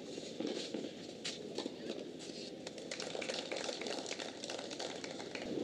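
A tennis point being played on a clay court: several sharp knocks of racket strikes and ball bounces over steady background noise.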